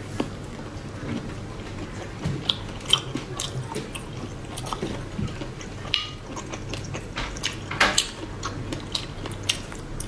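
A person biting and chewing spicy squid, close to the microphone, with many short, sharp mouth clicks and smacks at an irregular pace.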